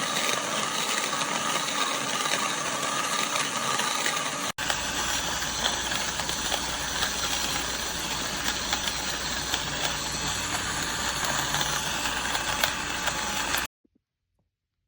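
Portable electric burr coffee grinder running, grinding beans: a steady motor whir, broken by a brief dropout about four and a half seconds in, then cutting off about a second before the end.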